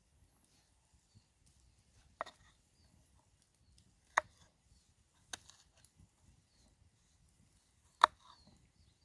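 Wood being chopped: four sharp, single strikes a second or two apart, the third one weaker.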